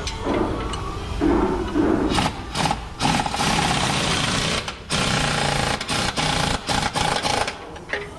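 Impact wrench hammering in a string of short bursts with brief pauses, most of them from about three seconds in, working the bolts of a truck cab's shock absorbers.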